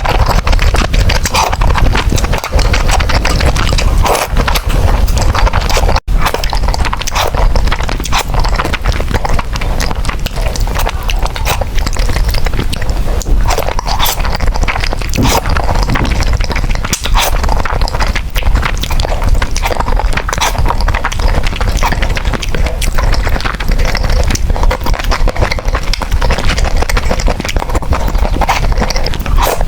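Close-miked eating sounds: noodles being chewed and slurped, a dense, continuous run of wet mouth clicks and smacks.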